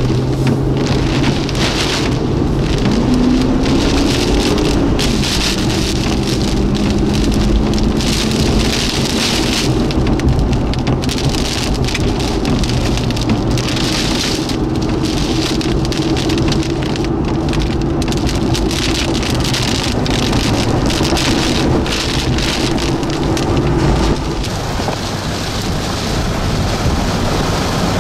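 Rain pelting a moving car's windshield and body in a thunderstorm, in loud surges, with a low engine hum underneath that rises and falls a little in pitch and drops out about four seconds before the end.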